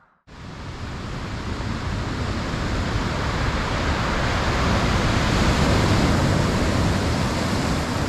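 A steady rushing noise, like wind and surf, that starts abruptly just after a cut and swells over the first few seconds before holding steady.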